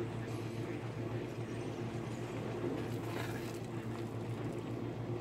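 A wooden spoon stirs thick, reduced pumpkin butter in a pot, faint against a steady low hum, with a brief louder scraping rustle about three seconds in.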